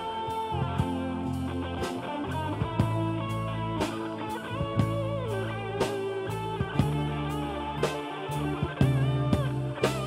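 Rock band music: electric guitar playing bluesy lines with sliding notes over a steady drum beat.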